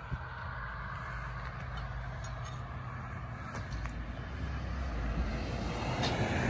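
A motor vehicle's engine running steadily, getting louder over the last couple of seconds, with a few faint clicks.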